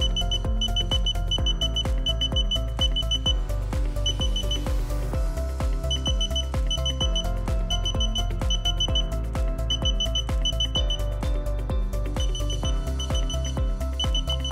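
Background music with a steady bass beat and a repeated high, beeping figure in quick groups.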